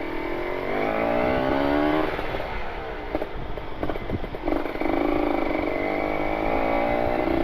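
Kawasaki Ninja RR 150's two-stroke single-cylinder engine, through an R9 carbon exhaust, revving under acceleration. Its pitch rises for about two seconds, drops back, then climbs again about four and a half seconds in and holds high.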